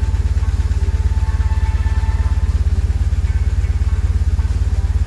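BMW R 1150 GS air/oil-cooled boxer twin idling steadily as it warms up after a cold start, with the choke already off: an even, rapid low pulsing.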